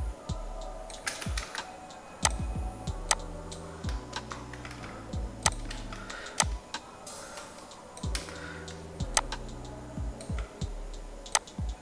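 Computer keyboard and mouse clicking, sharp and irregular, with a low steady hum underneath.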